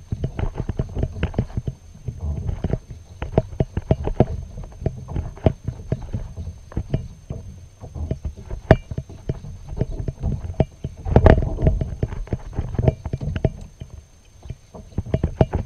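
Kayak paddle strokes: a busy clatter of irregular knocks from the paddle working against the kayak, with splashing water. The loudest knock comes about eleven seconds in.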